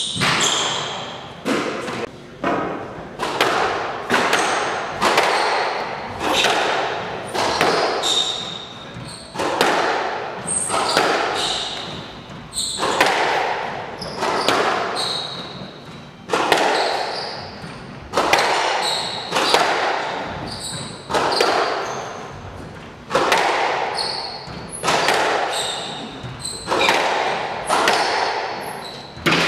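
Squash rally: the hard rubber ball cracking off rackets and the court walls about once a second, each hit echoing off the walls.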